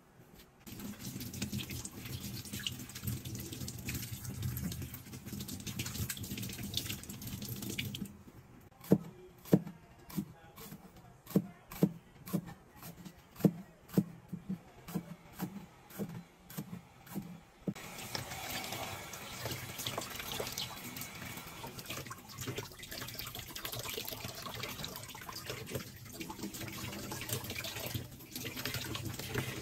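Tap water running steadily into a steel sink, then a cleaver chopping a green pepper on a plastic cutting board in sharp strokes about two a second for some ten seconds, then the tap running again with water splashing over hands and raw chicken.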